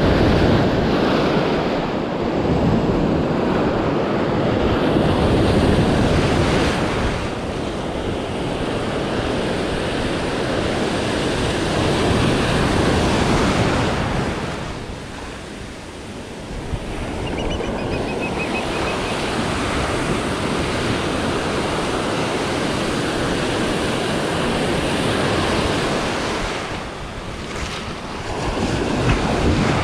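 Ocean surf breaking and washing up the beach, with wind buffeting the microphone. The rush swells and eases with the waves and drops briefly about halfway through.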